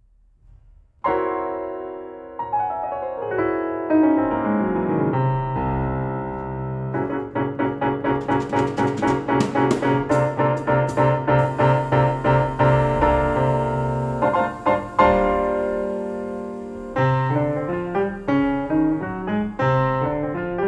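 Piano music played back over Qualio IQ open-baffle loudspeakers. It starts about a second in with a falling run, then moves into rapidly repeated chords over a steady bass line.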